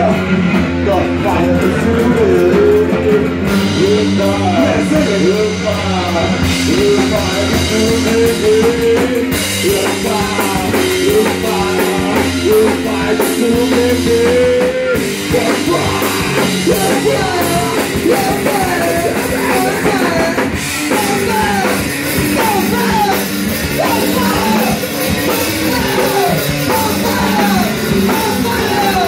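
Punk rock band playing live: distorted electric guitar, bass guitar and drum kit.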